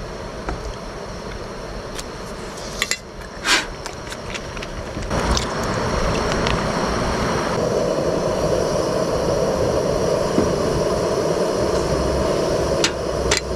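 A camp gas burner running steadily under a pot, louder from about five seconds in, with a few short clicks and knocks.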